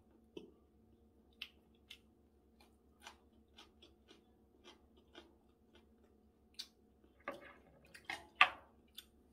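Close-up chewing of food, with soft wet mouth clicks and smacks at irregular intervals and a louder cluster of them near the end.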